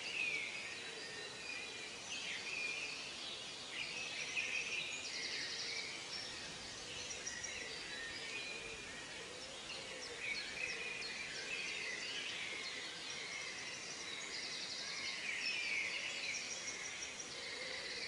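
Faint birdsong: several small birds chirping, with short rapid trills now and then.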